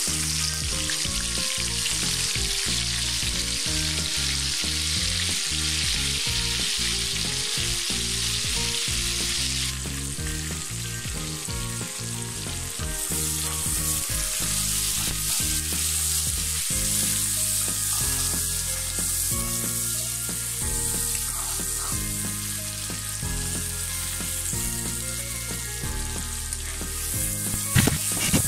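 Chopped onions sizzling as they fry in hot oil in a pan, stirred with a wooden spatula, over soft background music. A few sharp knocks of the spatula near the end.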